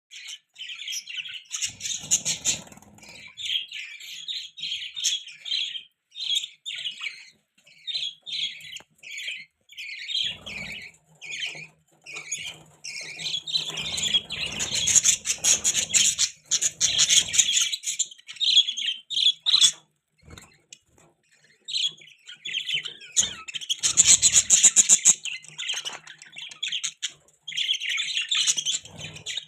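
Budgies chirping and chattering in a steady run of short, repeated calls, with denser, louder bouts of chatter about halfway through and again near the end.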